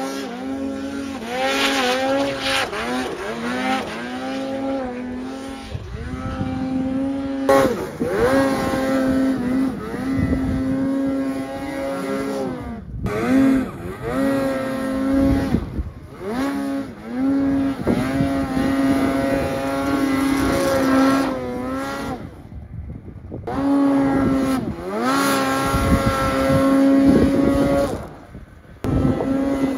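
Snowmobile engine revved in repeated bursts while the sled works through deep powder: each burst climbs quickly to a high, steady pitch, holds, then drops off, with a few short breaks between.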